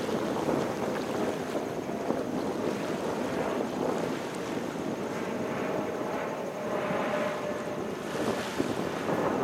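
Wind buffeting the microphone over small waves lapping at the water's edge, as a steady rushing noise that swells a little now and then.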